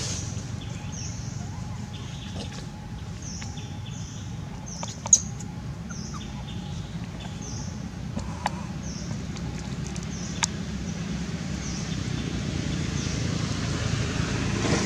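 Forest ambience: a short, high chirp repeating about once a second over a low steady rumble, with a few sharp clicks, the loudest about five seconds in.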